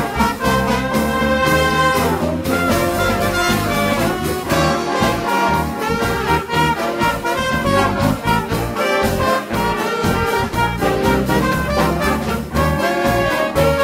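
Brass-led jazz-style instrumental music with trumpets and trombones over a steady beat.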